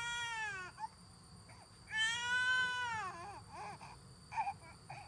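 Newborn baby crying: two drawn-out cries, one at the start and another about two seconds in, with short whimpers between.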